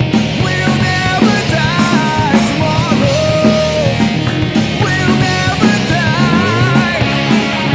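Heavy rock music with a steady drum beat and a gliding lead melody over it.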